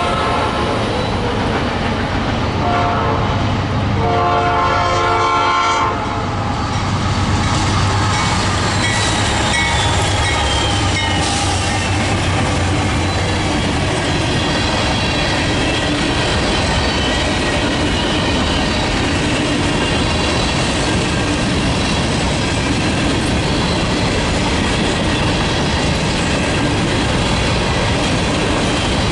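Locomotive horn sounding a chord twice: one blast ending just after the start and a longer one from about 2.5 to 6 seconds in. After that a freight train rolls past with steady wheel and car noise.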